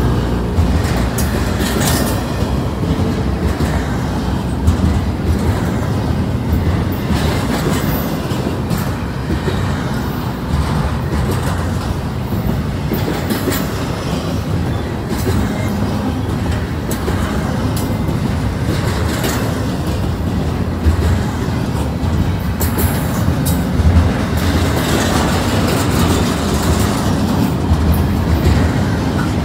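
Double-stack intermodal well cars rolling past close by: a steady rumble of steel wheels on rail, with scattered clanks and clicks as the wheels pass over the track.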